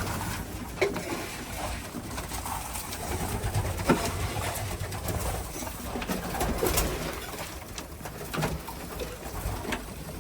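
Racing pigeons cooing in a loft, with scattered sharp clicks and knocks from the birds moving about, the loudest about four seconds in.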